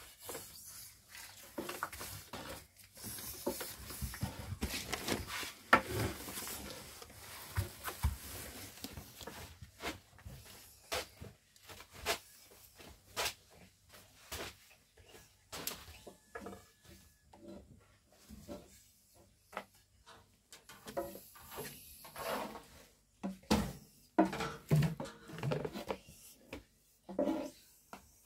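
Long wooden rolling pins rolling out flatbread dough on round wooden boards: irregular knocks and rubbing of wood on wood, with dough being slapped and handled.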